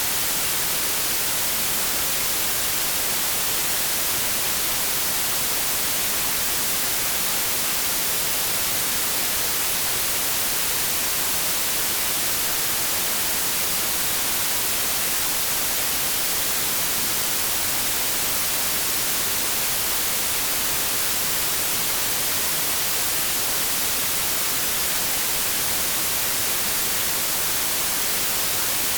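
Steady synthetic 'inverse' white noise: an even, unchanging hiss, strongest in the high frequencies and weaker in the bass.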